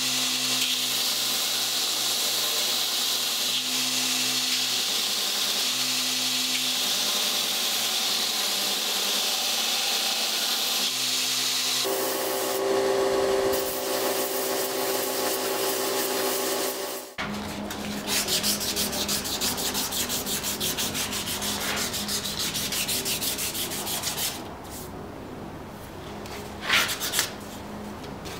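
A steel knife blade is ground on a belt grinder, a steady abrasive hiss for about twelve seconds. It cuts to another machine running steadily for several seconds. The rest is fast back-and-forth hand sanding on the knife's wooden handle, which grows quieter near the end.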